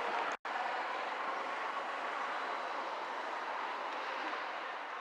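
Steady outdoor ambience of a busy harbour quay, an even rushing background noise without clear voices, which drops out for an instant just under half a second in.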